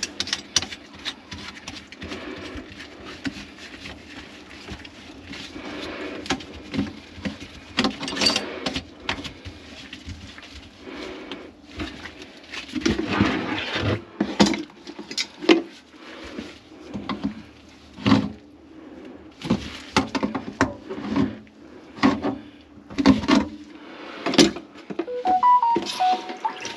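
Irregular knocks and clatters of tools and pipe parts at a plugged kitchen sink drain, over a steady low hum, with a few short tones near the end.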